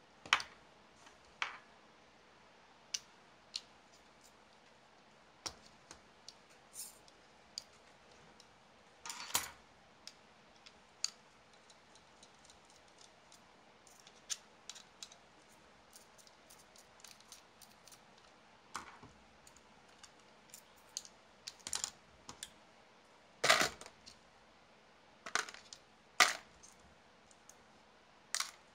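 Irregular light clicks and taps of small plastic and metal RC car parts and hand tools being handled, screwed and set down on a cutting mat while a 1/28 RC car chassis is taken apart. The loudest knocks come in the last third.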